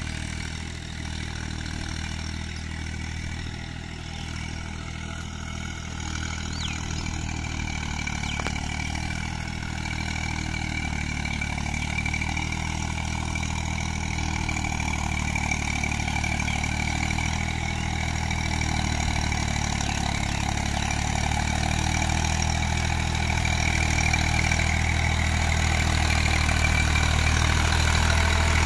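Eicher 380 tractor's diesel engine running steadily under load as it pulls a rotavator through deep mud. It grows steadily louder as the tractor comes closer.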